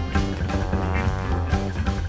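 Instrumental jazz band music: drums and bass keeping a steady groove under guitar and horn lines.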